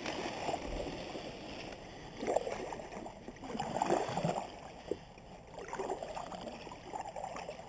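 Kayak paddle strokes through calm pond water: the double-bladed paddle dips and pulls, a watery swish and gurgle every second or two.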